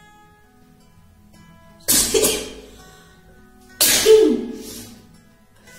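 A woman sneezes twice, about two seconds apart; each is a sudden loud burst ending in a falling voiced 'choo', over soft acoustic guitar background music.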